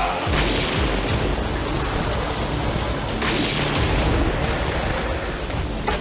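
Battle sound effect of dense, rapid machine-gun fire, continuous with heavier volleys, dubbed as the toy tank's gunfire.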